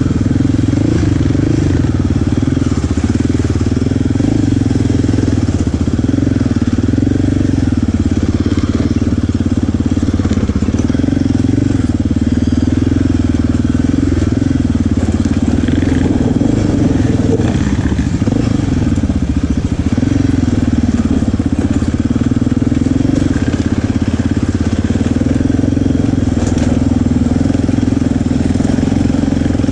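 ATV engine running continuously under way, heard close from the rider's seat, its note rising and falling with the throttle.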